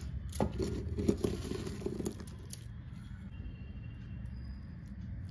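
Crisp chocolate biscuits being broken up by hand in a plastic bowl: a quick run of snaps and crackles in the first two seconds, over a steady low hum, then quieter.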